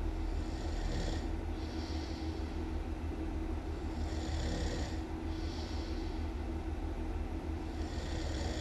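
A person snoring in a slow, even rhythm: a rasping breath in and a breath out, each pair coming about every four seconds, over a steady low hum.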